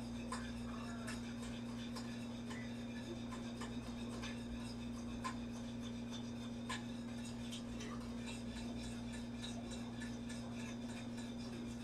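A whisk working through chicken gravy as it boils in a stainless saucepan, making faint, irregular clicks and scrapes against the pot, over a steady low hum.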